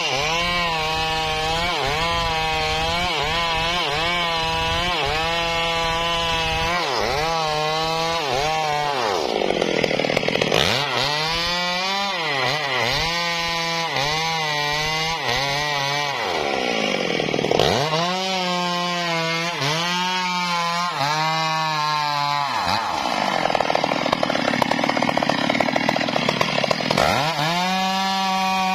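Two-stroke Stihl chainsaw cutting into a tree trunk at high revs, its engine pitch dipping and recovering again and again as it bogs under the load of the cut. In the last third the pitch drops lower for a few seconds, then the saw revs back up near the end.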